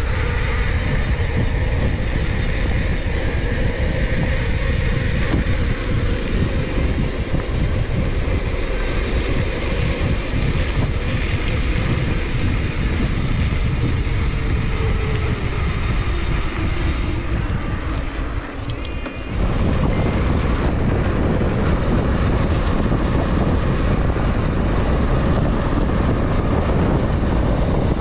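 Wind buffeting and rumble on a bicycle-mounted action camera's microphone while riding, with a faint tone sliding slowly down in pitch through the first half. The noise dips briefly about two-thirds of the way in, then carries on a little louder.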